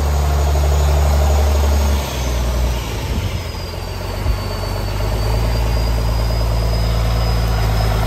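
Farm tractor's diesel engine running at close range while it handles a round bale on its front loader; the engine note drops about two seconds in and builds back up a few seconds later. A faint high whine slides down in pitch over the same stretch.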